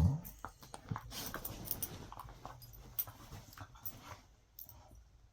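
Small dogs scuffling in a bed: soft rustling and scattered clicks from the covers, with quiet dog sounds, fading toward the end.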